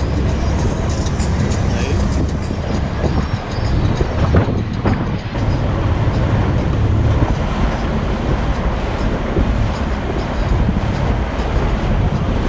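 Boat under way across open sea: a steady, loud rumble of the motor and rushing water, with wind buffeting the microphone.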